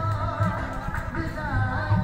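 Background music: a song with a wavering sung melody over low drum beats.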